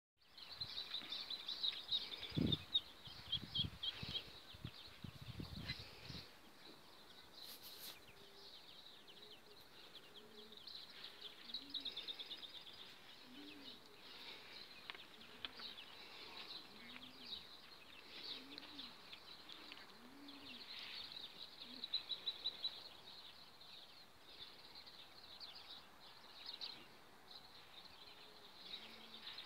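A brood of day-old Muscovy ducklings peeping, a faint, continuous high-pitched chorus. Soft low cooing calls repeat every second or two from about eight seconds in, and there is low rumbling in the first six seconds.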